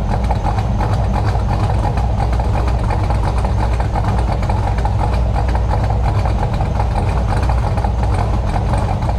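Cammed LS V8 of a fifth-generation Chevrolet Camaro idling steadily through its dual exhaust, shortly after its first startup; the headers are no longer leaking.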